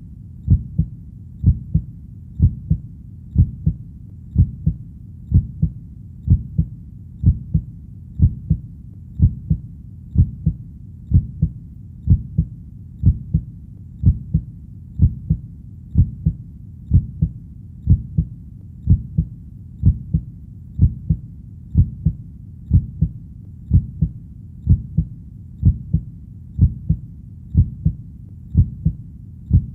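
Heartbeat, a steady lub-dub of low double thumps at about one beat a second.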